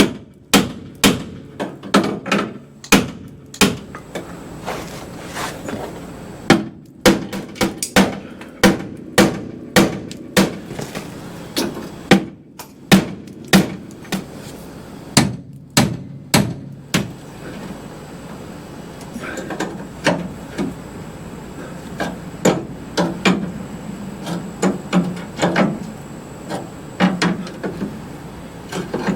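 Hammer blows on a car's steel frame rail, working a crinkle out of the bent metal: a quick run of sharp metallic strikes, often about two a second, that gives way after about 17 seconds to lighter, sparser knocks.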